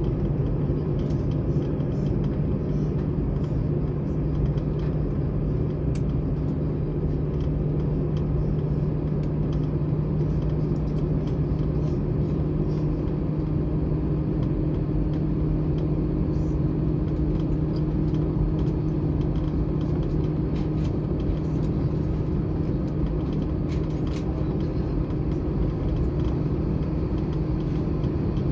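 Steady cabin noise of an Airbus A321 taxiing, heard from a passenger seat: jet engines at taxi power giving a constant low hum with a steady droning tone, a second, higher tone joining about halfway through, and faint small ticks and rattles.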